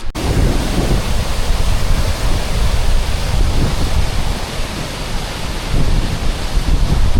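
Wind buffeting the microphone outdoors: loud, gusty noise with a heavy low rumble.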